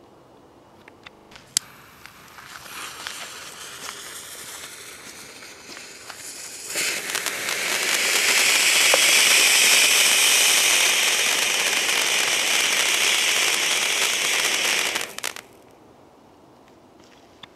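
Category 1 ground fountain firework burning. A sharp click near the start, then a quieter hiss and crackle for a few seconds, then a loud spraying hiss of sparks for about eight seconds that cuts off suddenly as it burns out.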